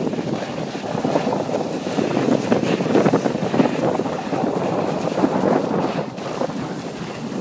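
Wind rushing and buffeting over a moving phone's microphone, a steady noisy rumble that swells about a second in and eases near the end.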